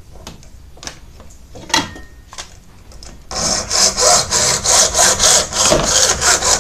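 Hand hacksaw cutting through the plastic body of an LED bulb clamped in a vise, in quick back-and-forth strokes that start about three seconds in, after a few light clicks of handling.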